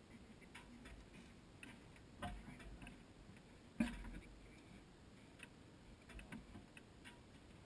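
Quiet, with a few brief faint clicks and knocks; the loudest comes about four seconds in.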